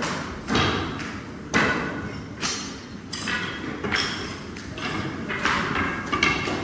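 Long wooden rolling rods knocking and rolling against steel work tables as baklava dough is rolled out, sharp irregular knocks about once a second, some with a short metallic ring.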